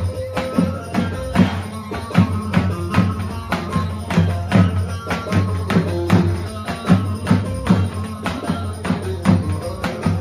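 Live Turkish folk dance music: a davul bass drum beats a steady, quick rhythm under a melody line.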